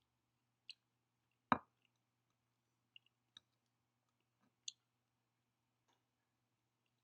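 Faint, scattered mouth clicks and smacks of someone eating, about half a dozen over several seconds. One louder, fuller thump comes about a second and a half in.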